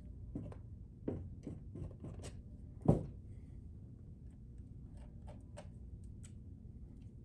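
Palette knife working thick oil paint: irregular light scrapes and clicks, with one sharp knock about three seconds in and a few lighter taps after it.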